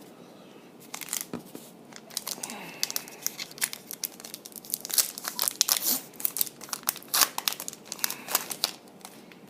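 A foil trading-card pack wrapper being torn open and crinkled by hand: irregular sharp crackling from about a second in until shortly before the end.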